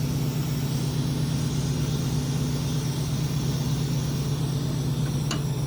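A steady low mechanical hum, like an engine running, with a short click about five seconds in.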